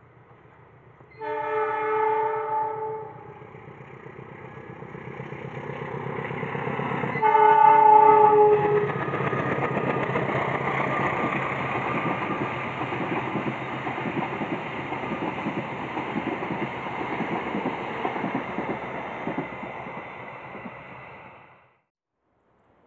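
A train sounds two long multi-tone horn blasts, the second louder, then approaches and passes with rising, steady rumbling and wheels clattering over the rails. The sound cuts off suddenly near the end.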